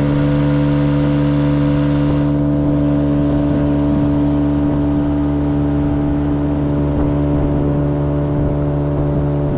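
Fishing boat's outboard motor running steadily at one unchanging pitch.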